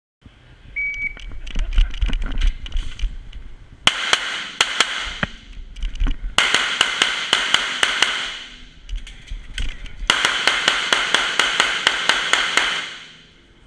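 A shot timer's short start beep, then a 9mm Glock 34 pistol firing rapid strings of shots through a stage, in four bursts with pauses between them. The shots ring on in the reverberation of an enclosed shooting bay.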